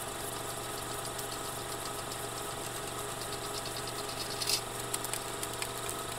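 A small machine running steadily with a rattling, even hum. A short sharp noise comes about four and a half seconds in.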